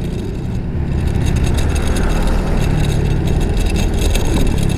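Motor scooter engine running steadily while riding, with wind and road noise over it, getting a little louder about a second in.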